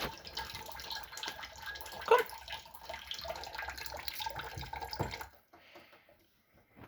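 Water running from a tap and splashing, with a couple of sharper, louder splashes; the flow cuts off suddenly about five seconds in.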